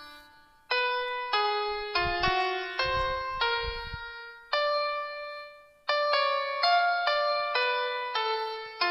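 Background keyboard music: a slow, piano-like melody of single struck notes, each fading out after it is played. It breaks off twice, near the start and about halfway through.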